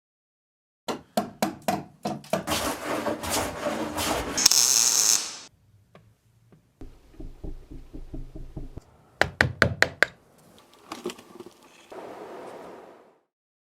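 Two quick runs of sharp knocks with clatter between them, and a short rush of hiss about five seconds in.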